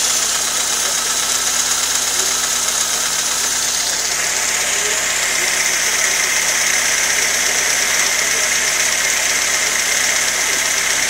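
Fiat Tempra's carburetted petrol engine idling steadily, heard close up in the engine bay, with a steady high hiss over it that changes pitch about four seconds in.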